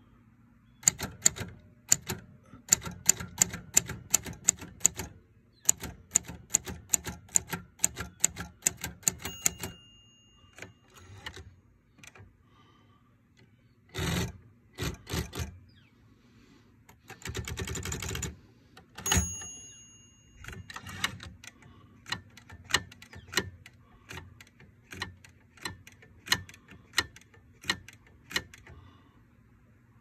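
Olympia B12 manual typewriter being typed on: quick runs of keystrokes, the typebars snapping against the platen. The margin bell dings twice. A longer rattle partway through is the carriage being slid back, and after it the keystrokes come slower and more spaced out.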